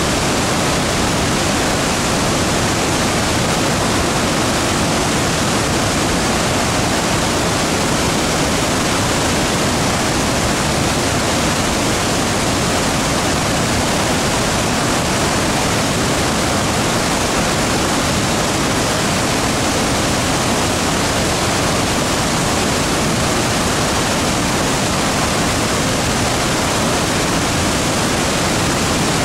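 Victoria Falls on the Zambezi River: a broad, heavy curtain of water plunging into the gorge, heard as a loud, steady rush of falling water.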